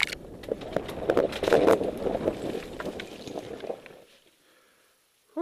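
Leaves and branches brushing and scraping over a helmet-mounted camera, a dense rustle with many sharp cracks and clicks that stops suddenly about four seconds in, leaving near silence.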